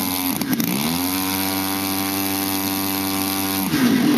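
Small engine of a remote-control model plane running: its pitch dips briefly, climbs back and holds steady, then cuts off suddenly near the end.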